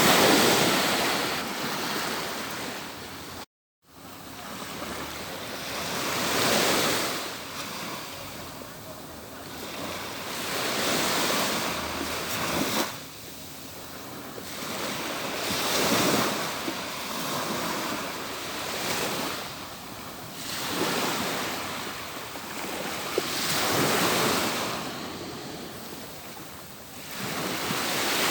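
Atlantic Ocean surf on a beach: waves rolling in and washing back, each one a swell of rushing noise about every four to five seconds. The sound cuts out to silence for a moment just before four seconds in.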